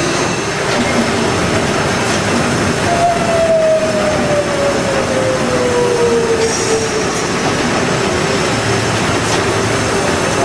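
Engine-room din of a marine triple-expansion steam engine running at sea: a loud, steady mass of reciprocating machinery noise. A clear tone slides slowly downward in pitch from about three seconds in to about seven, and another starts near the end.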